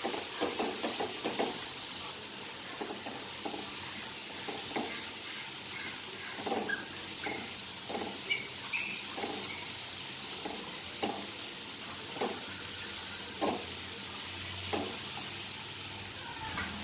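Onion-tomato masala with spices sizzling as it is roasted in oil in a nonstick frying pan, with a wooden spatula stirring and scraping the pan every second or so.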